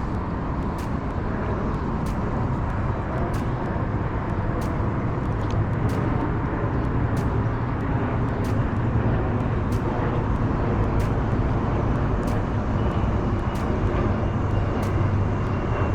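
Steady rumble of interstate traffic on the bridge deck overhead, swelling slightly in the second half.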